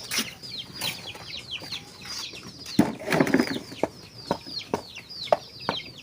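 Chickens calling: many quick, high peeps, each falling in pitch, come several a second, with a few short clucks and knocks among them.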